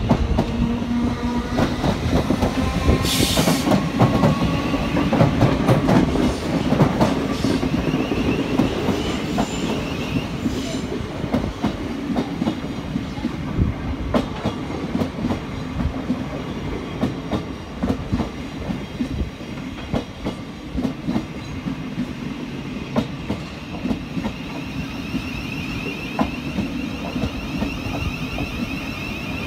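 A train running through the station, its wheels clattering over the track against a steady rumble. It is loudest in the first several seconds, then eases off, with a high wavering whine near the end.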